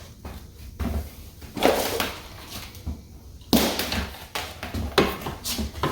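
Several knocks and rustling scrapes from a portable electric cooler and its AC power cord being handled at the cord socket.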